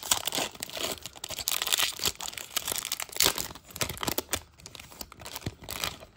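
Crinkling and tearing of a 1994 Leaf baseball card pack's wrapper as the pack is ripped open and handled: a dense run of irregular crackles that dies away near the end.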